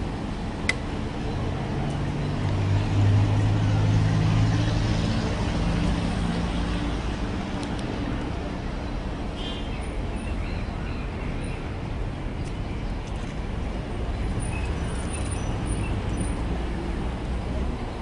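Street traffic noise, with a motor vehicle's engine running close by and loudest a few seconds in, over a steady background hum of road traffic.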